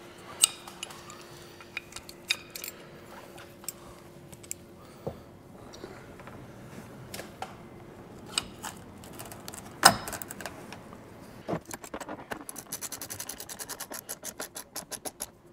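Hand ratchet tightening bolts through a hard top into roof-rack brackets: scattered metal clicks and clinks, then a fast, even run of ratchet clicks over the last few seconds.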